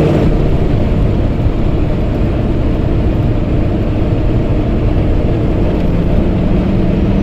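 Heavy farm machinery running steadily, a loud mechanical drone with a constant hum. A second, lower hum comes in near the end.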